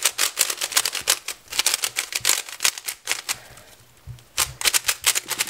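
Plastic 3x3 speed cube being turned fast by hand: a dense run of clicking, clacking layer turns that thins out briefly about three and a half seconds in, then picks up again. These are the first turns on a new cube, which is already getting faster.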